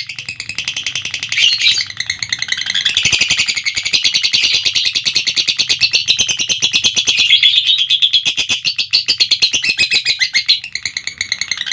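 Lovebird giving its long 'ngekek' call: an unbroken run of rapid, high-pitched chattering notes, many a second, shifting a little in pitch as it goes.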